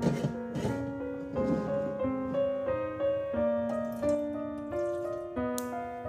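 Soft piano background music with slow, changing notes. A few brief knocks and scrapes near the start, as a metal saucepan is set down on a gas stove's grate.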